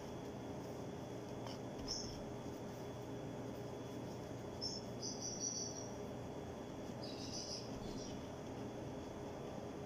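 Soft dough being kneaded by gloved hands in a bowl, faint under a steady low room hum. A few short high-pitched chirps stand out, about two, five and seven seconds in.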